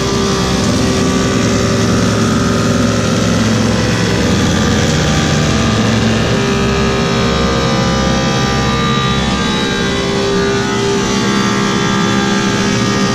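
Woodmaster 725 planer with a helical cutterhead running steadily while a black cherry slab feeds through and is planed flat.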